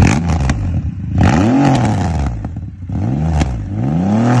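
Inline three-cylinder motorcycle engine revved in repeated throttle blips, its pitch rising and falling about four times.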